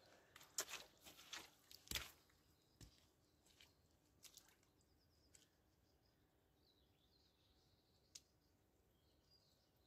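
A few sharp knocks and creaks in the first three seconds, footsteps in rubber boots on wet wooden planks and logs. After that, near quiet with faint high bird chirps.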